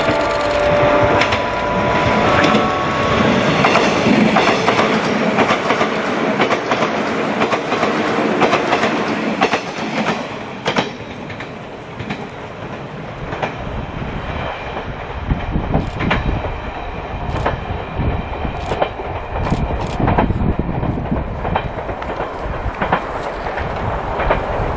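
A JR 185 series electric multiple unit running past, its wheels clicking over the rail joints in quick runs of clicks. Just before eleven seconds in, the sound drops suddenly, and the clatter then builds again.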